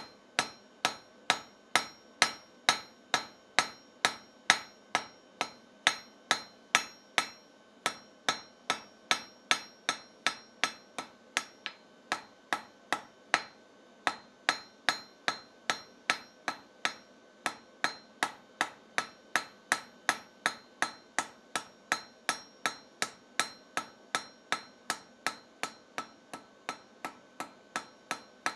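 Blacksmith's hand hammer striking steel on an anvil in a steady, even rhythm of about two to three blows a second, with the anvil ringing between blows.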